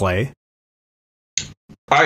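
A man's voice ending a spoken question, then about a second of dead silence, then two brief faint sounds on the other speaker's line just before he starts to talk.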